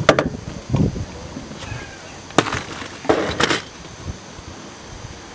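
Sharp knocks and clinks of gear being handled in an aluminium fishing boat: one right at the start, another about two and a half seconds in, and a quick clatter just after three seconds.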